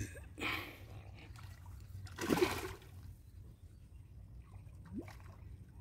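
Water splashing at the surface from a hooked fish: a short splash just under half a second in and a louder one about two seconds in.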